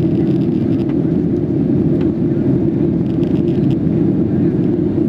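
Boeing 737-700 airliner cabin noise heard from a window seat over the wing during the climb: the CFM56-7B turbofans and rushing airflow make a steady, deep rumble. A faint click sounds about two seconds in.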